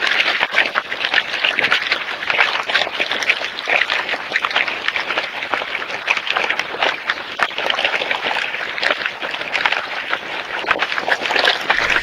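Wild boars rooting and walking through dry leaf litter: a dense, continuous crackling rustle of leaves.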